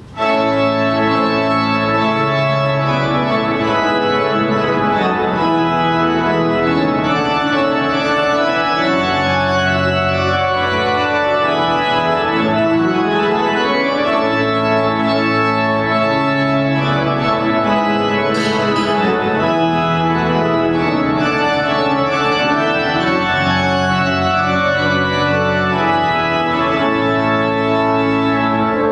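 Organ music starting suddenly and loud: full sustained chords over a bass line that moves every second or two, with no singing.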